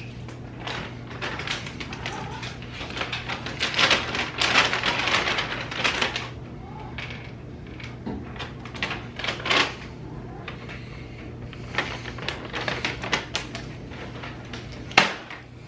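Irregular clattering, clicking and rustling as household things are handled, busiest a few seconds in, over a steady low hum; one sharp knock near the end.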